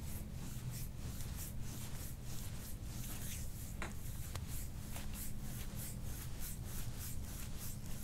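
Hands massaging bare skin on a patient's upper back: a quick run of soft rubbing swishes, about three or four strokes a second, over a steady low hum.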